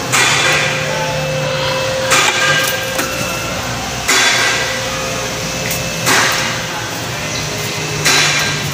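Hammer blows on metal, struck about every two seconds, as a stubborn rack-and-pinion steering rack is knocked loose from under a car. A steady hum runs underneath.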